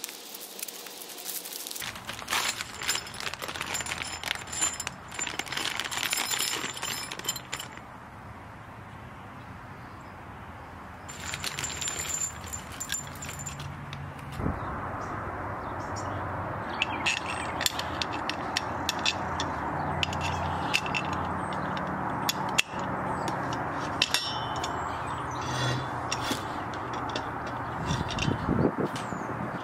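Plastic packaging crinkling as parts are unwrapped and a bag of hardware is opened, followed by scattered clinks of small steel bolts, nuts and washers being handled during assembly, over a steady hiss in the second half.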